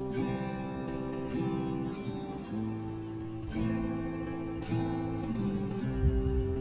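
Background music: strummed acoustic guitar chords changing about once a second.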